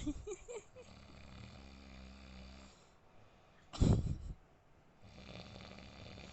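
A man snoring in his sleep: a long snore about a second in, a loud short snort about four seconds in, then another long snore near the end.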